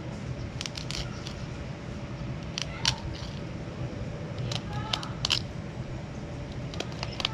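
A fillet knife scraping and clicking along a lingcod's backbone and ribs as the fillet is cut away, in scattered short sharp clicks. The ticking of the blade on bone is the sign that the knife is following the bones as it should.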